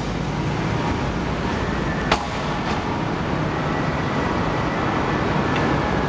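Steady rumbling background noise of a car park, with a single sharp knock about two seconds in.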